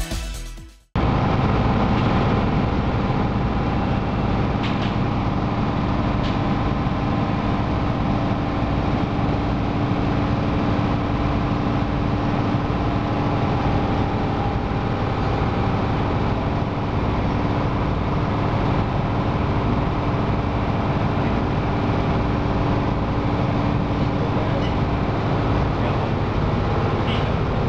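Ferry engine-room machinery running: a loud, steady mechanical drone with a constant hum that does not change. Background music fades out in the first second.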